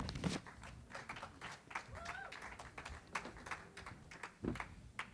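Sparse, irregular clapping mixed with knocks and taps from instruments and chairs being handled, with a low thump near the end and faint murmured voices.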